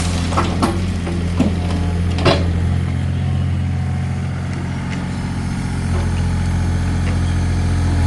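An engine running steadily at an even low pitch, with a few short knocks and clatters over it, the clearest about two seconds in.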